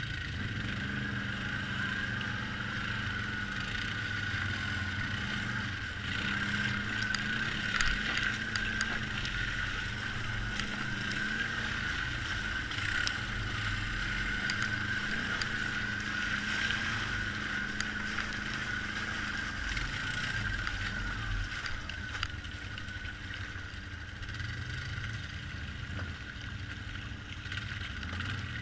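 ATV engine running steadily on a muddy trail, its note wavering slightly with the throttle, with a steady high whine above it and a few scattered clicks.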